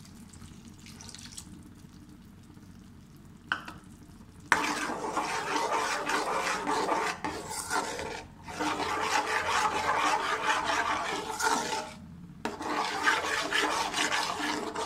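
A steel spoon stirring and scraping a wet besan-and-milk mixture around a steel karahi, in a rasping scrape that starts about four seconds in and runs on with two short breaks.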